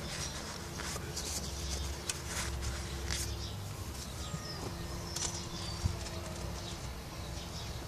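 Small scattered clicks and light scrapes of hand work on a bare cylinder head around the valve stems, as bits of old stem seal are cleared out. Under them is a steady low hum.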